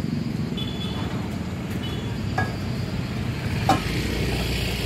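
Street traffic with motorcycles and cars running past, and a few sharp metal clinks of tongs against small frying pans on a gas stove. The loudest clink comes a little before four seconds in.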